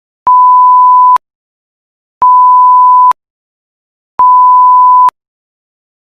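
Electronic beep tone: a loud, pure single-pitch beep about a second long, repeated three times at even two-second intervals with silence between.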